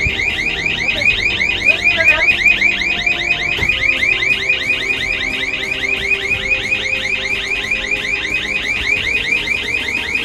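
Welding habitat safety alarm sounding, a fast repeating rising electronic whoop of about six sweeps a second, set off while the habitat's high-temperature alarm is being tested.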